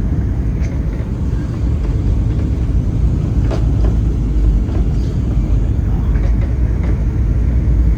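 Steady low rumble of a jet airliner's engines and airflow heard from inside the passenger cabin, with a few faint rattles.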